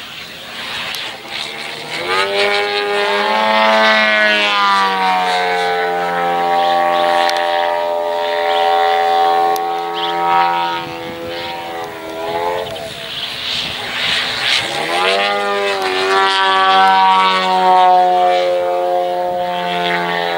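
Giant radio-controlled Yak-55's 3W 150cc two-stroke petrol engine and propeller flying overhead. The engine opens up about two seconds in and holds a steady high note, drops back near twelve seconds in, then opens up again about fifteen seconds in.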